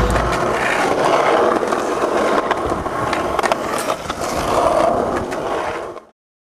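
Skateboard wheels rolling over rough pavement, a steady gritty rumble with a few sharp clicks, cutting off suddenly near the end.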